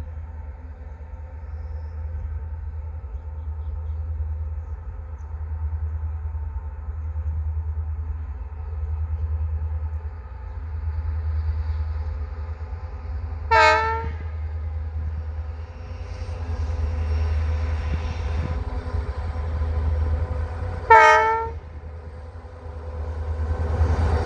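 Approaching Indian Railways goods train hauled by diesel locomotives: a steady low engine drone that swells and fades. Two short horn blasts come about seven seconds apart, and the rumble grows louder near the end as the train arrives.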